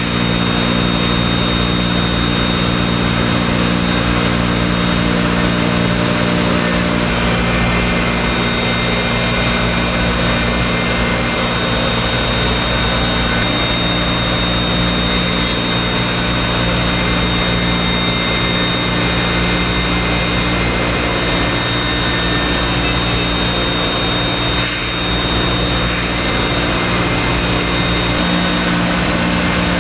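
Thermwood M-90 five-axis CNC router running steadily, its spindle-driven cutter machining a pattern in MDF: a continuous machine noise with a steady high whine over low hums.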